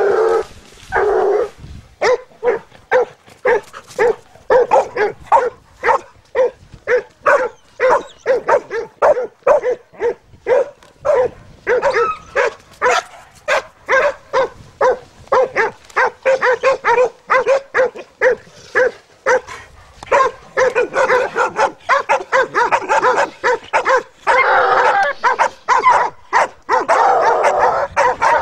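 Beagle hounds barking in rapid repeated cries, about two a second, growing denser toward the end as several voices overlap.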